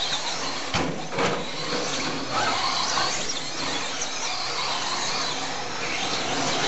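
Radio-controlled 2WD Slash short-course trucks racing on dirt: a continuous high-pitched whine of electric motors and gears mixed with tyre noise. A couple of sharp knocks come about a second in.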